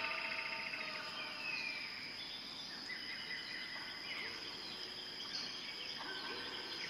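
Tropical rainforest ambience: a steady, high-pitched insect drone under scattered bird calls, with a rapid trill at the start and a descending whistled note about a second and a half in.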